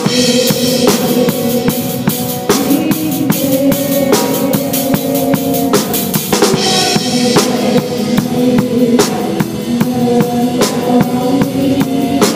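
Live band playing, with a drum kit beating out a steady rhythm of kick and snare hits over sustained pitched instrument notes.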